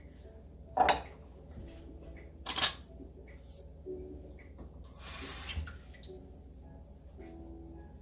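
Kitchen clatter of utensils and pans: two short, sharp knocks about one and two and a half seconds in, then a brief hiss about five seconds in, over quiet background music.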